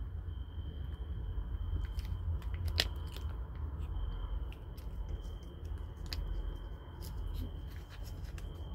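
Foil wet-cat-food pouch crinkling and crackling in a hand, with scattered sharp clicks, and a tabby kitten starting to lick and chew the food from it near the end. A thin steady high whine and a low rumble run underneath.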